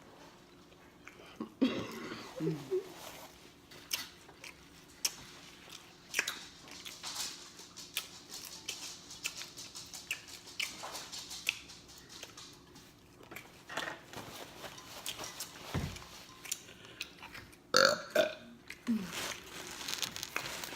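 Open-mouthed chewing of pizza with wet smacks and small clicks, broken by two burps, one about two seconds in and a loud one near the end, called a good one. A dull low thump comes shortly before the second burp.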